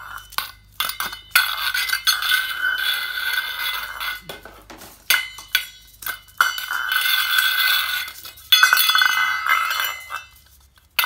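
Stainless steel bowl pushed and dragged over a tile floor by a cockatoo's beak: sharp clanks and several long stretches of scraping in which the bowl rings, going quiet near the end.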